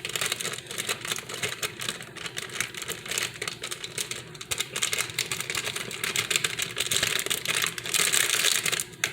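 A bag being shaken and crinkled while its contents are poured into a pot: quick irregular rustling and ticking, heavier about seven seconds in.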